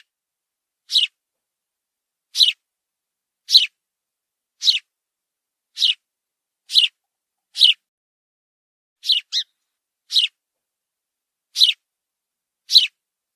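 Sparrow chirping: short single chirps about once a second, with a quick double chirp about nine seconds in.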